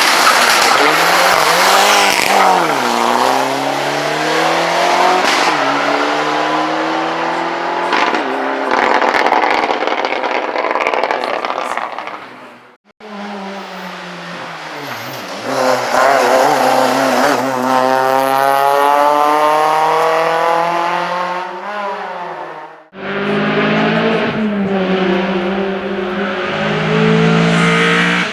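Rally car engines revving hard and passing, their pitch climbing and dropping with each gear change. The sound breaks off abruptly near the middle and again about four-fifths of the way through, each time starting on another car.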